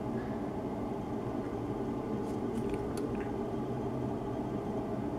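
Steady low room hum, with a few faint, light clicks between about two and three seconds in.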